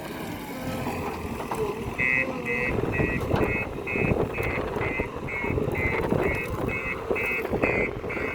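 JCB backhoe loader's diesel engine running, and about two seconds in its reversing alarm starts beeping, a little over two beeps a second.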